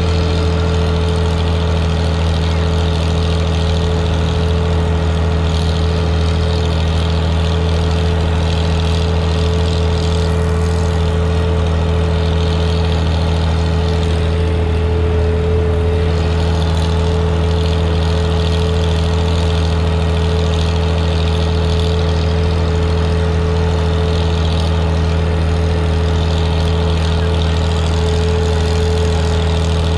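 Antique tractor engine running steadily while the tractor drives along at road speed: an even low drone that holds its pitch.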